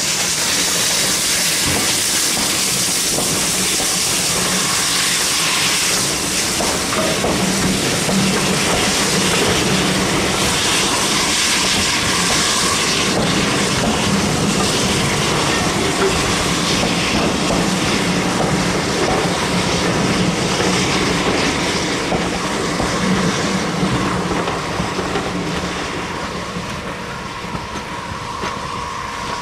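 Southern Railway USA class 0-6-0 tank steam locomotive pulling away with a train of coaches. Steam hisses as the engine passes, then the coaches' wheels clatter over the rail joints and pointwork. The sound fades near the end as the train draws away.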